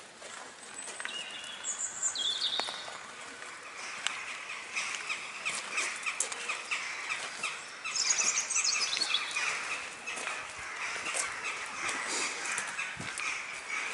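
Small birds chirping and twittering, with short trills about two seconds in and again about eight seconds in, over footsteps crunching on a gravel path.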